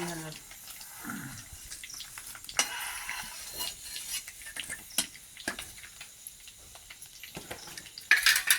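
Metal kitchen utensils clinking and scraping against a cooking pot, with scattered sharp clicks and knocks and a louder clatter near the end.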